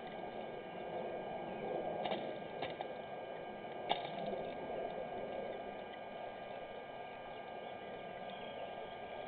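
Steady electrical hum from the camera's audio chain, several fixed tones over a low hiss, with a few faint clicks a couple of seconds in and again near four seconds.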